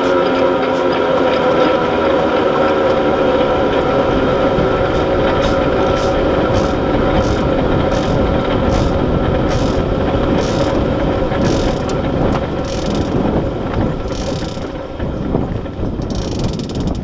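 Blown drag-car engine running at low speed as the dragster rolls along, a steady pitched drone that slowly fades. From about a third of the way in there is a regular sharp ticking, about two ticks a second, that slows toward the end.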